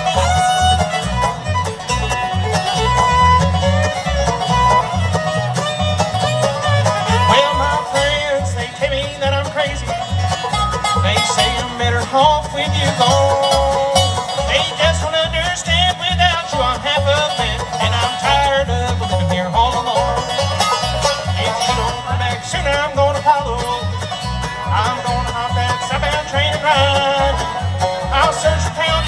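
Live bluegrass band playing: banjo, fiddle, mandolin, acoustic guitar and upright bass, over a steady bass beat.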